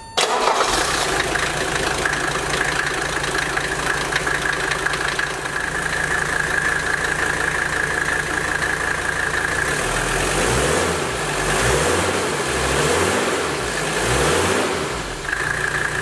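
Mercedes W123 five-cylinder turbodiesel engine running with its factory air intake fitted, with a steady high whine above the diesel clatter. About ten seconds in it is revved up and down several times.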